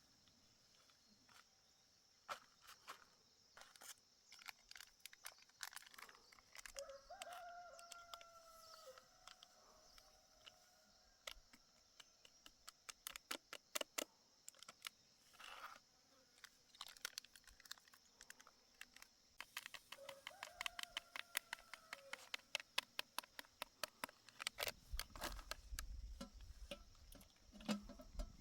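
A rooster crowing faintly, twice, each crow a long call of about two seconds. Scattered light clicks and taps run throughout.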